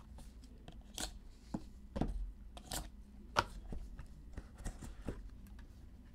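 A box of trading cards and its packaging being opened and handled: an irregular series of short clicks, crinkles and rustles, with one sharper click about three and a half seconds in.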